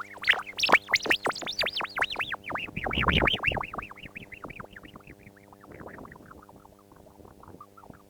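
Laser microphone's photodiode output as the mirror reflecting its beam is tapped and vibrates: a fast run of warbling electronic chirps, each rising and falling in pitch, over a steady electrical hum. The chirps are loudest about three seconds in, then slow and fade toward the end.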